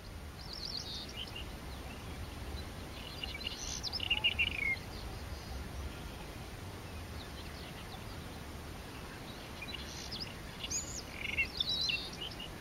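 White-throated robin singing: three short bursts of quick, scratchy, varied high notes, one at the start, one around four seconds in and one near the end, over a steady low background rumble.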